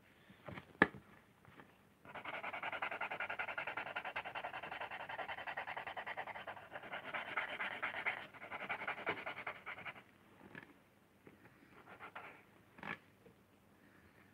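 Pencil scribbling rapidly back and forth on a lino block, a dense scratchy shading sound running for about eight seconds with short breaks, then only a few light strokes. A single sharp tap about a second in.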